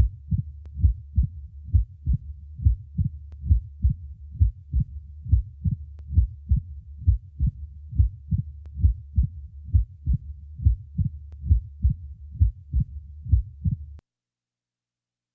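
Stethoscope recording of the heart at the apex in mitral stenosis: each beat gives the first and second heart sounds, with the second followed closely by a short, sharp mitral opening snap, repeating steadily. The recording cuts off about a second before the end.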